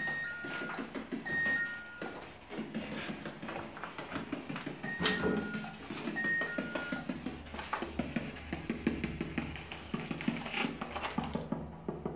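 Electronic two-note chime, a higher note falling to a lower one, sounding four times in two pairs: twice at the start and twice again about five seconds in. Footsteps crunch on rubble in between.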